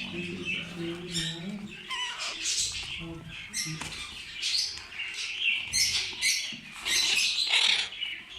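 Small pet birds chirping and squawking in a cage, many short, irregular high calls overlapping throughout.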